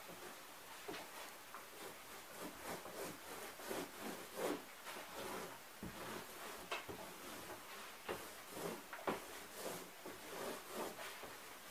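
Small paint roller worked back and forth over a cardboard furniture panel, making a faint rubbing sound in short, irregular strokes.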